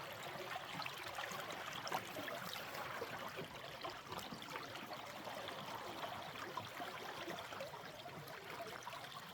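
A small stream running and trickling steadily over stones, with a busy patter of small splashes and gurgles.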